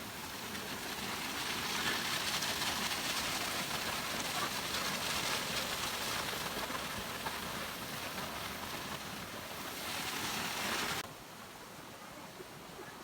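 Steady rushing of a waterfall, swelling in over the first couple of seconds and cutting off suddenly about eleven seconds in, leaving a fainter rush.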